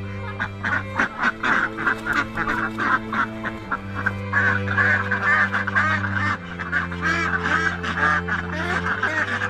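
A flock of domestic ducks quacking over and over in quick, overlapping calls, over background music with slow held chords.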